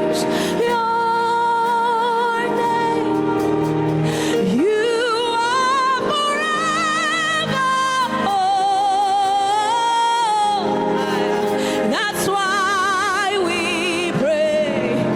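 Gospel music: a woman sings long, held notes with a wide vibrato and sliding pitch over a steady accompaniment.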